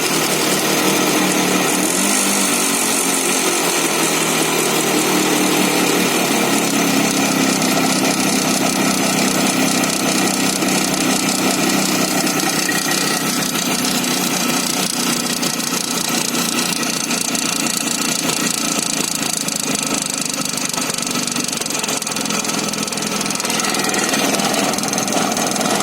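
IZh Jupiter-5 motorcycle's two-stroke twin-cylinder engine running steadily with a knock in it, the engine fault the owner is showing.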